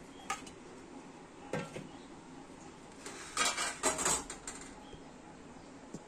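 Stainless steel dishes clinking: a few single light knocks, then a burst of clattering about three seconds in that lasts about a second.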